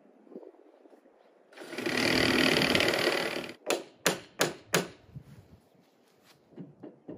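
A handheld power tool runs steadily for about two seconds, then four sharp clicks follow in quick succession.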